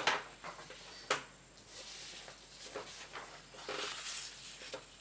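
Faint handling of paper sheets on a desk: a sharp click about a second in, then soft rustling and scraping.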